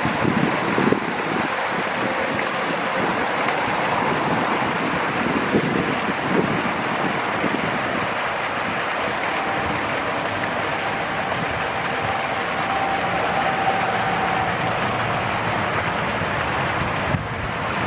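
Partly frozen waterfall: a steady rush of water falling and splashing through ice, with distant highway traffic hum underneath.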